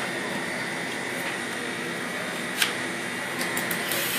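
Steady background hum of a commercial kitchen with the power drill stopped between apples. There is one sharp click about two and a half seconds in and a few light ticks near the end.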